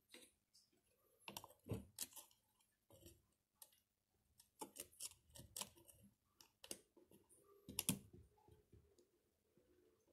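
Faint, irregular clicks and taps of small metal parts and a screwdriver as screws are fitted and tightened into the rear fan plate of a Kirby vacuum motor.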